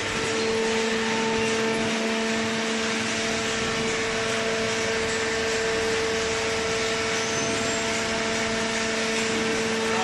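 Horizontal hydraulic baler's power unit running: the electric motor and hydraulic pump give a steady drone with an unchanging pitched hum.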